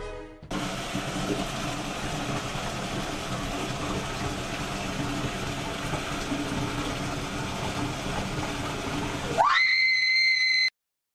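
A steady, even noise, then about nine seconds in a woman's scream that rises sharply in pitch, holds high for about a second and cuts off abruptly.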